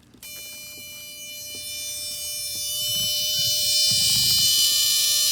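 Mercedes W126 headlamp/seat belt warning buzzer sounding: its relay contact oscillates and vibrates the whole module housing, giving a steady, distinct electric buzz. It starts just after the headlights are switched on and grows louder over the first few seconds.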